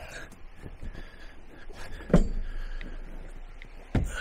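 Two dull thumps about two seconds apart, the first the louder, with faint shuffling between, as a pull-out couch is pulled out and opened into a bed.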